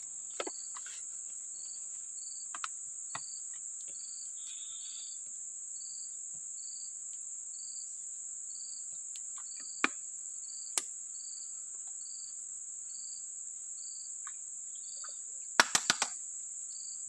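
Steady high-pitched drone of forest insects, with a separate short chirp repeating about every two-thirds of a second. A few sharp clicks sound now and then, and a quick run of four louder clicks comes near the end.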